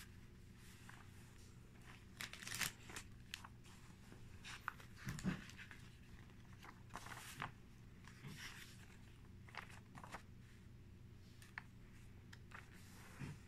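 Pages of a paper LEGO instruction booklet being turned by hand: faint, scattered paper rustles and flicks.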